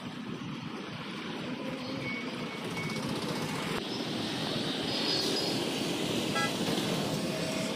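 City road traffic: a steady hum of passing motorbikes and auto-rickshaws, with a short vehicle horn toot near the end.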